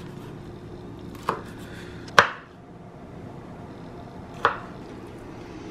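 Kitchen knife chopping chili peppers on a plastic cutting board: three separate sharp knife strikes, about a second in, just after two seconds (the loudest), and about four and a half seconds in.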